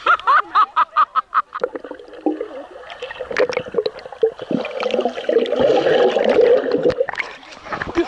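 A boy laughing loudly in quick bursts at the water's surface, then the muffled rush and bubbling of water heard through a camera's waterproof case as it goes under, with splashes and knocks from swimmers.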